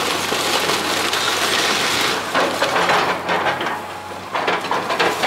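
Wood-frame building being torn apart by an excavator: timber cracking and splintering as debris crashes down. The noise is continuous for about two seconds, then comes in separate crunches with a short lull near the end.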